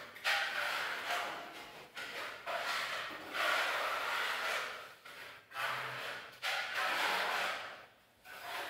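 Hand trowels scraping across a wall as burnt-cement effect paste is spread and smoothed, in a series of irregular strokes each about a second long with short pauses between.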